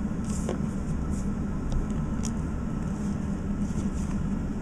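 Steady low room hum, like an air conditioner or fan running, with a few faint, brief rustles of trading cards being handled.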